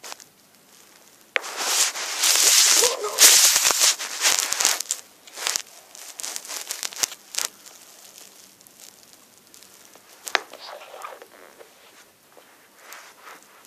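Handling noise: a loud rustling scrape lasting about three and a half seconds, then scattered clicks and taps, with one sharp click about ten seconds in.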